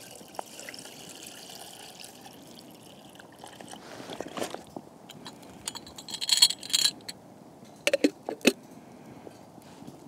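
Water pouring from a bottle into a small stainless steel kettle packed with spruce tips; the pour stops about three and a half seconds in. Then come bright metallic clinks and a few sharp clacks as the kettle's metal lid is handled and set on.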